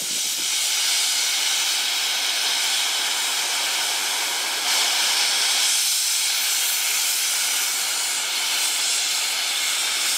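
Steam venting with a loud, steady hiss from low down on a DR class 35.10 steam locomotive.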